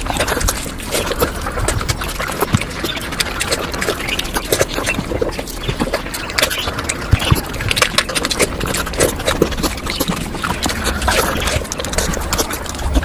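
Close-miked mukbang eating sounds of curry, sped up about tenfold: a dense, rapid stream of wet chewing, smacking and slurping clicks.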